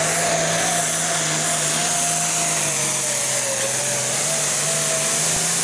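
Super Farm class International Harvester pulling tractor's diesel engine running flat out under load as it drags the weight sled. It is loud and steady, with a thin whine riding over the engine note.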